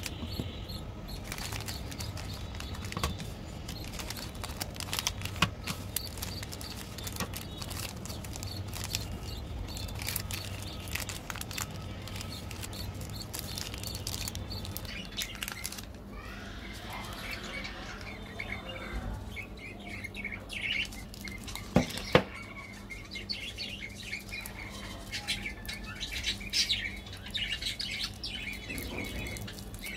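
Plastic and foil chocolate-bar wrappers crinkling and rustling as they are handled and pulled open, with sharp crackles, the loudest about five seconds in and about 22 seconds in. Birds chirp in the background, more in the second half.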